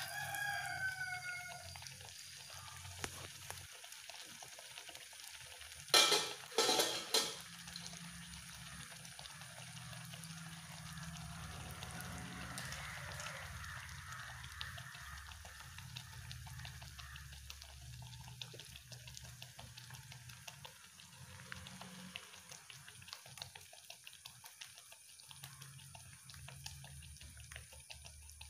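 Batura dough deep-frying in hot oil in a deep pan, the oil sizzling and crackling steadily. About six seconds in, three short loud sounds come close together over the sizzle.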